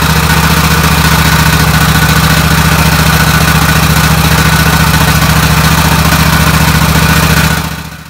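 Kohler 7000 Series engine on a zero-turn riding mower running steadily at a fast idle, then fading out near the end.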